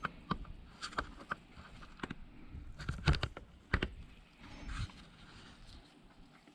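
Irregular light clicks and knocks from hands and gear being handled around the engine bay, with a few louder knocks about three and four seconds in.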